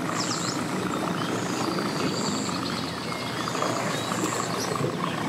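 Evinrude outboard motor on a small aluminum boat running steadily at low speed as the boat pulls away.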